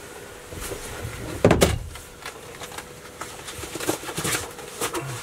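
Knocks and thuds on a boat's deck as a freshly landed jewfish is handled in a landing net, with one heavy thump about a second and a half in and several lighter clicks and knocks later on.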